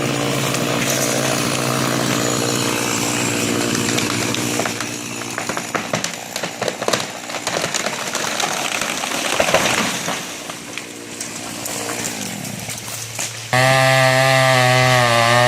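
Chainsaw running hard, cutting into a large cottonwood trunk for a hinge cut. The engine note holds steady for the first few seconds, then gives way to several seconds of uneven noise with scattered sharp clicks. About two seconds before the end, the saw comes back suddenly, loud and steady.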